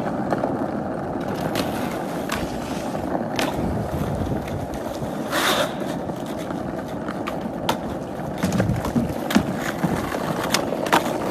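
Skateboard wheels rolling on pavement, a steady rumbling hum broken by sharp clacks now and then, with a brief louder scrape about halfway through.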